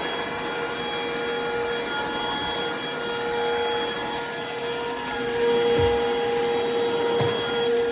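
Stanew 22.2 V 150 W cordless stick vacuum running, a steady motor whine with a rush of air. A couple of brief low thumps come near the end.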